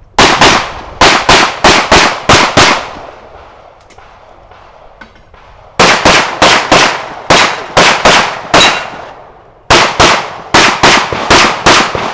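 Handgun shots fired in rapid strings of about three shots a second, with short pauses between strings while the shooter moves or reloads, as in an IPSC practical shooting stage. Each shot is a sharp, loud bang with a brief echo.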